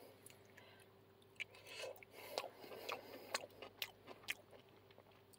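Faint chewing of a mouthful of Singapore noodles dipped in curry sauce, with a few small scattered clicks.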